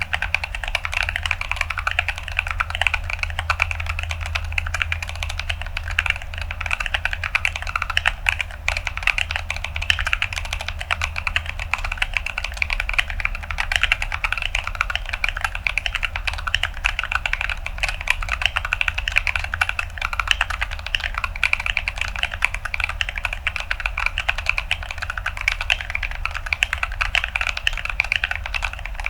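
Continuous fast typing on an Atlantis AK81ve mechanical keyboard with Gazzew Boba U4T tactile switches in an acrylic plate and Akko ASA-profile keycaps. It is a dense, unbroken run of crunchy keystroke clicks.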